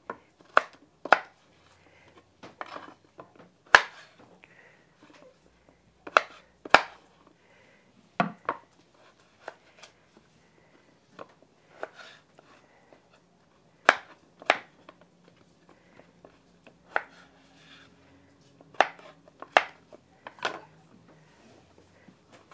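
Kitchen knife chopping zucchini into large pieces on a wooden cutting board: separate sharp knocks of the blade going through the squash onto the board, irregularly spaced, about one a second.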